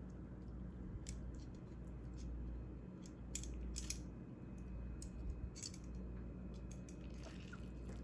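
Metal tongs clicking and scraping as they lift sauced macaroni noodles from a serving platter, a few short sharp clicks and crisp rustles, over a steady low hum.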